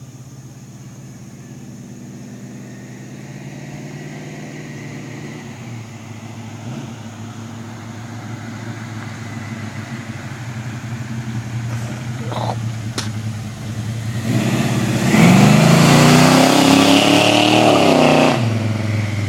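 Chevrolet SS with a 355 small-block V8 whose engine grows steadily louder, then is revved hard for about four seconds with the rear tyres spinning: a loud rush over a rising engine note that stops suddenly about a second before the end.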